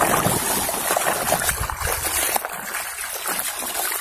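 Steady splashing and trickling of water in a bucket as a toy truck is scrubbed by hand under a pouring stream of water.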